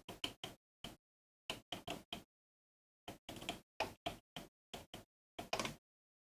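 Faint, irregular short scrapes and taps of a soldering iron tip pressing and rubbing on an LCD ribbon cable, about a dozen in all, each cut off abruptly into silence. The iron is heating the cable down onto its Z-axis conductive tape to restore contact.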